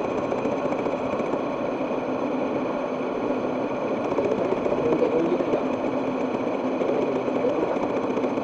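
Milling machine running steadily, machining a steel clamp part: a dense, even grinding noise with a few steady tones over it.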